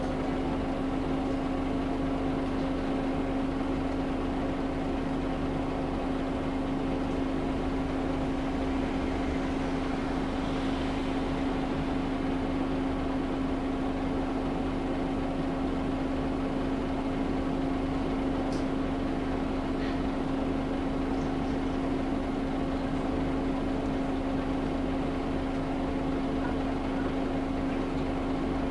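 Scania L94UB bus engine idling steadily, heard from inside the passenger saloon as an even, unchanging hum.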